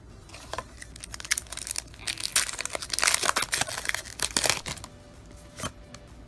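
A foil Pokémon Guardians Rising booster pack wrapper being crinkled and torn open: a dense run of crackling from about a second in to nearly five seconds, then a single sharp click.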